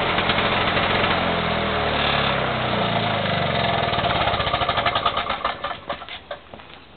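Victa 160cc two-stroke lawn mower engine, freshly rebuilt with a new piston and rings, running, then dropping in pitch as it is throttled back. Its firing strokes slow and it dies away to a stop near the end.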